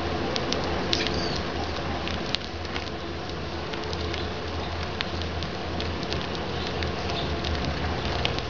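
Eurasian tree sparrows pecking at food, a run of small, sharp, irregular taps, over a steady low hum.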